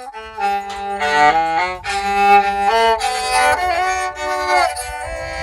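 Rabeca, a handmade Brazilian folk fiddle, bowed in a melody that moves from note to note, some notes held for about a second.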